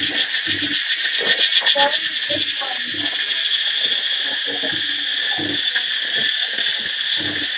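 Insects buzzing steadily in two high bands, pulsing faster for a moment between about one and two seconds in. Scattered short low sounds come and go underneath.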